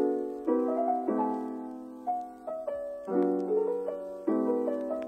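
Soft background music on piano: slow chords struck every second or so and left to fade, with a simple melody over them.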